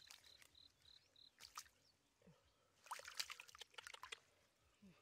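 Hands sloshing and splashing in a shallow muddy pool while groping for fish, with a burst of splashes about three seconds in. A faint high chirp repeats about four times a second in the first second or so.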